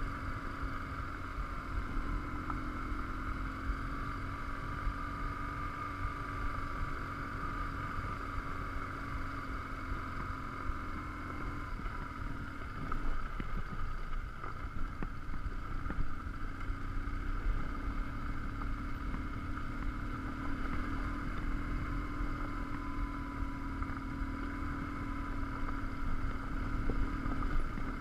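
BMW R1150GS Adventure's boxer twin running steadily on a gravel track, over a low rumble of wind and gravel; the engine note eases off briefly about halfway through, then picks up again.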